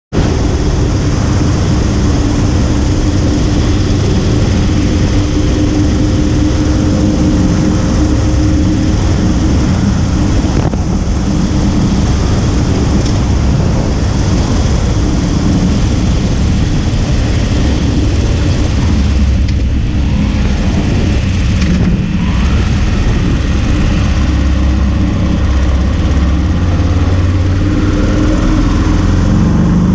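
Harley-Davidson Road King's 45-degree V-twin engine running at road speed, mixed with steady wind rush and tyre noise on the fork-mounted camera.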